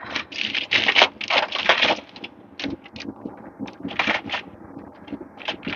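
Aluminium foil and butter paper crinkling and rustling as hands unwrap them in irregular bursts, densest in the first two seconds and again around four seconds in.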